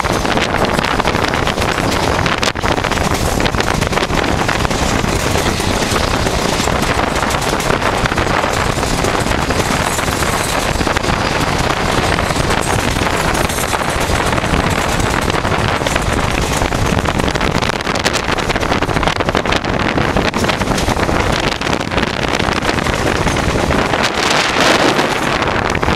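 Shantiniketan Express passing at speed: a steady, loud rushing rumble of the train on the rails, with wind buffeting the microphone.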